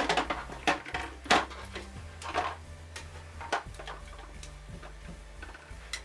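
Skincare jars and bottles knocking and clinking against a mini fridge's plastic tray as they are set in place: a handful of separate knocks, most of them in the first few seconds.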